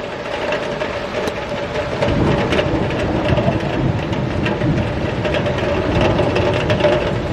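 Heavy thunderstorm rain, large drops pattering and ticking on a surface, over a steady hum. From about two seconds in a low rumble of thunder joins and the sound grows louder.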